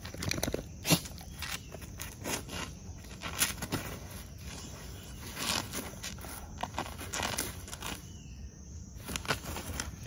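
Irregular crunching and scraping steps on dry ground, each one short, with a louder one about a second in.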